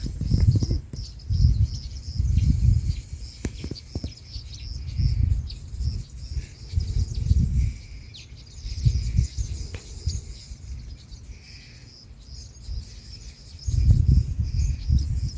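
Small birds chirping and twittering repeatedly, with wind buffeting the microphone in irregular low rumbling gusts.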